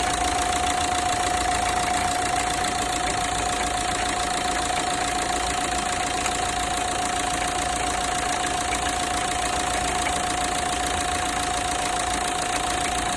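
Renault Mégane III 1.5 dCi four-cylinder diesel engine idling steadily, with a steady whine over the running. The owner hears a strange sound like metal cracking near the accessory belts.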